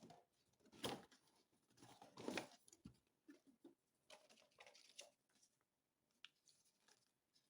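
Near silence with a few faint, short rustles and soft taps, about a second apart, like something being handled; no hair dryer is running.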